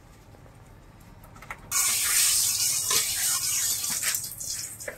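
Hot cooking oil in a karahi sizzling loudly as food goes in. The hiss starts suddenly about two seconds in, with a few pops, and tapers off near the end.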